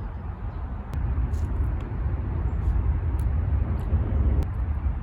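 Steady low rumble of heavily congested road traffic, cars crawling in rush hour, with a few faint ticks.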